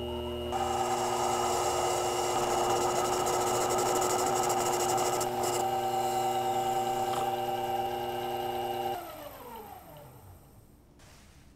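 Sherline mini lathe running with a steady motor whine while a cutting tool parts off a brass piece, a rough cutting noise over the whine. About nine seconds in the motor is switched off and the whine falls in pitch as the spindle spins down.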